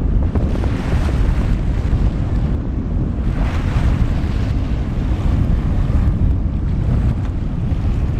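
Wind buffeting the microphone: a heavy low rumble that swells in gusts, over the wash of choppy water.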